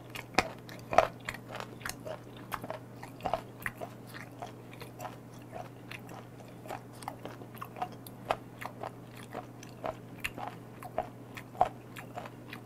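Close-miked chewing of raw chicken feet in spicy seasoning: irregular crunches and clicks, a few per second, the loudest about a second in. A steady low hum runs underneath.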